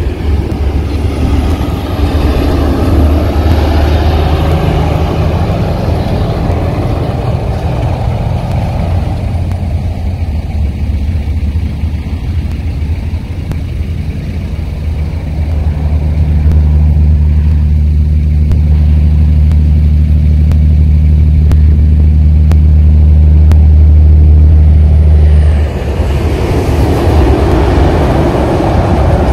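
Steady low rumble of a road vehicle being driven, engine and road noise together. It grows louder in the second half and drops suddenly near the end.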